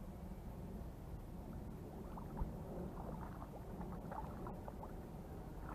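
Small, irregular splashes and drips of water as a hooked white perch is reeled in to the bank. They cluster about two seconds in and run for a few seconds, with one sharper splash, over a steady low background rumble.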